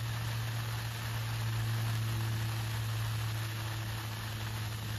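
Water from a garden hose running into an inflatable paddling pool: a steady hiss, with a steady low hum underneath.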